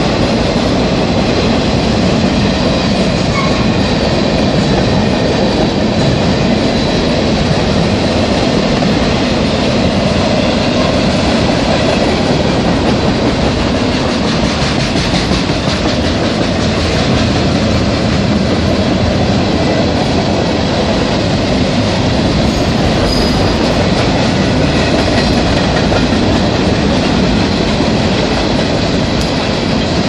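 Freight cars of a passing freight train rolling by close up, a steady loud rumble and clatter of steel wheels on the rails.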